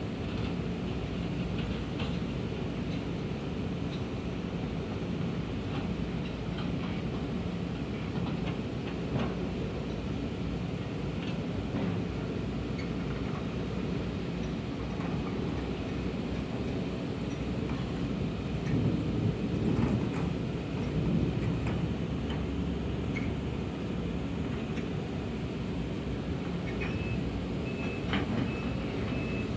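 Heavy diesel earthmoving machinery running steadily, a low engine rumble with scattered clanks, louder for a few seconds about two-thirds of the way through. Near the end a reversing alarm starts beeping.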